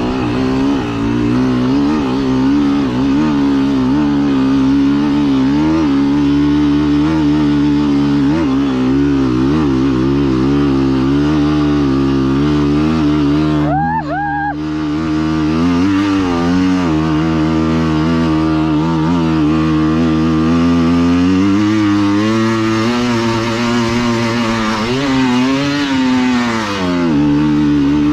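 Enduro motorcycle engine working hard on a steep slope, its revs rising and falling with the throttle the whole time. About halfway through the engine note briefly drops away, then picks up again.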